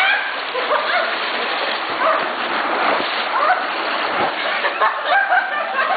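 A man moaning again and again in short calls that rise and fall in pitch, over the steady rush of whirlpool jets churning the water.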